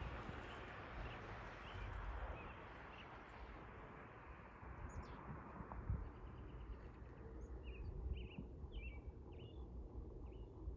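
Birds chirping faintly and intermittently over a steady outdoor background rumble and hiss; the hiss dies away about halfway through and a quick run of chirps comes near the end.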